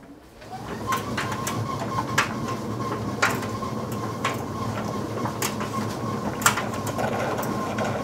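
Electrolux heat pump condenser dryer running a cycle with its top cover off. A steady mechanical hum with a thin whine builds up over the first second and then holds, with irregular light clicks. Water is poured into the condensate tray to check that the drain pump pumps it out.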